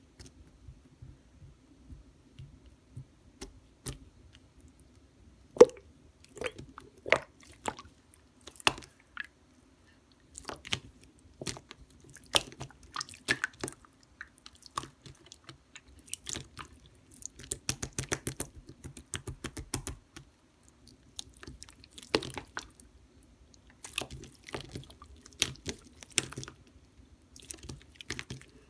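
Hands squishing and pressing slime, giving irregular sticky clicks and small wet pops, with a quick flurry of them about two-thirds of the way through.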